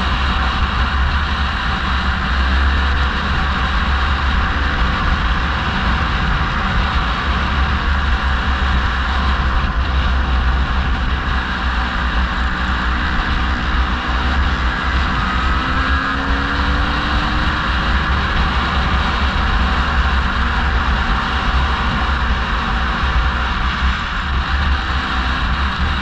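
Steady road and engine noise of a car driving slowly, heard from inside the car, with a strong low rumble; a faint engine note drifts in pitch around the middle.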